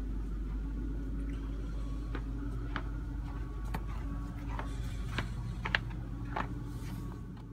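A steady low hum with scattered light clicks and taps, fading out at the end.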